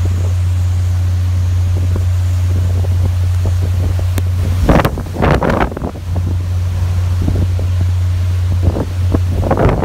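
Hurricane-force wind buffeting a phone's microphone: a steady deep rumble, with harder gusts blasting the microphone about five seconds in and again near the end.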